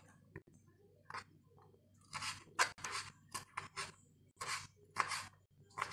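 Knife chopping black fungus (wood ear mushrooms) into small pieces on a cutting board: a quiet first second, then about ten crisp, irregularly spaced cuts.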